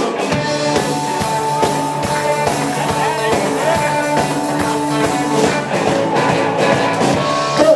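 Live rock-and-roll band playing an instrumental intro: held guitar chords over a steady, even drum beat, with no singing yet.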